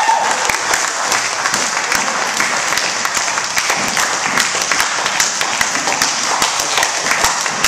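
An audience of schoolchildren applauding: many hands clapping at once, dense and continuous.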